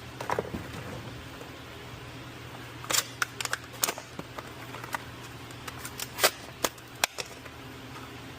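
Scattered sharp clicks and light knocks from parts and tools being handled, loudest about six seconds in, over a steady low hum.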